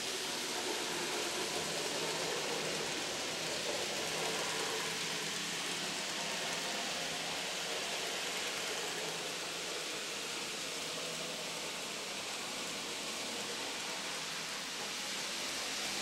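Steady hiss with the faint running of an N gauge model steam locomotive and coaches going along the track.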